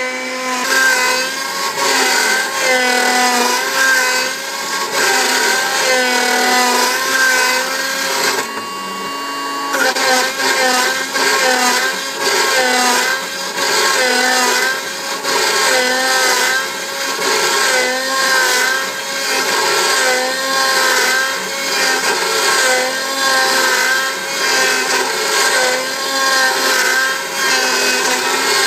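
Bravo Prodegy 3030 CNC router's spindle and drive motors running while the end mill cuts circular pockets in wood. The whine rises and dips in pitch about once a second as the cutter goes around the circle, with a brief steadier tone around nine seconds in.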